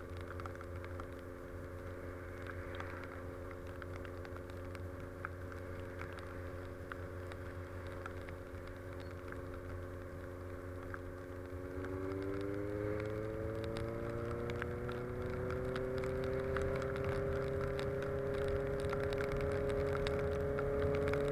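Honda CB650F inline-four engine running at a steady cruise, then rising smoothly in pitch and getting louder about halfway through as the bike speeds up, holding at the higher revs near the end.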